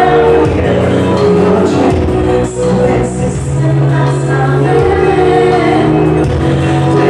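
Live soul/pop song: a woman sings into a handheld microphone over amplified keyboard backing, heard through the PA.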